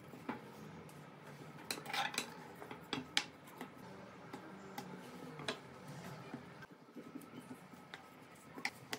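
Light, scattered knocks and taps of a wooden rolling pin on a silicone pastry mat as small pieces of dough are rolled out into flat rounds and set aside, the loudest about two and three seconds in.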